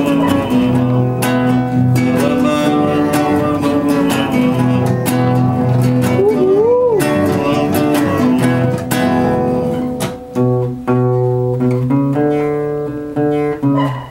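Acoustic guitar strummed in chords, with a short tone sliding up and down about halfway through and a few brief breaks between chords near the end.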